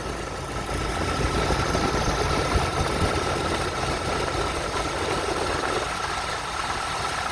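Car engine idling with the alternator running, a steady hissing whir with a thin steady high whine over a low rumble. This even hiss is what the speaker calls normal for an alternator, unlike a crackling or popping that would signal a fault.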